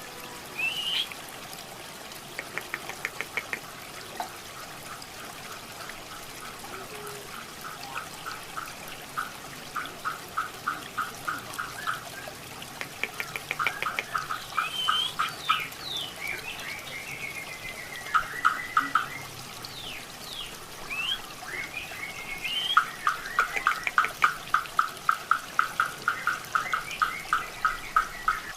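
Grey-cheeked bulbul (cucak jenggot) singing: long runs of rapid, evenly repeated notes, about five a second, mixed with short rising and falling whistles. A steady sound of running water lies underneath.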